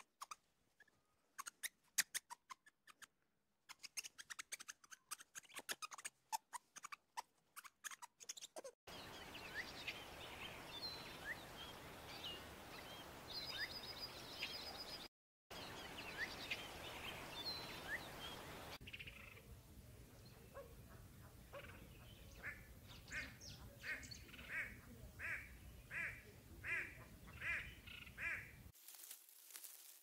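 Animal sounds from short cuts: first a run of sharp clicks and taps, then bird chirps over a steady hiss, then a regular series of about ten calls in quick succession, which a tagger takes for duck quacks.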